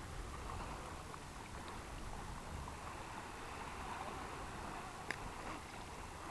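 Quiet water sloshing and lapping as dogs paddle through a lake, over a steady low rumble, with one faint click about five seconds in.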